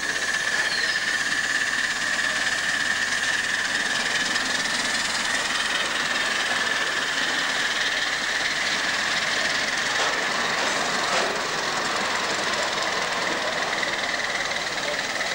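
Miniature ride-on live-steam locomotive hauling a passenger train: a steady hiss of steam and running noise, with a thin high tone that is strongest in the first few seconds.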